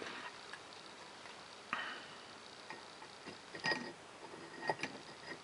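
Small metal parts being handled: a short scrape about two seconds in and a few scattered light clicks as the governor's end cover is fitted and its bolts are put in.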